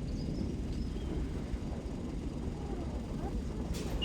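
Low, steady rumble of a Boeing 777-300ER's GE90 jet engines as the airliner climbs away after takeoff.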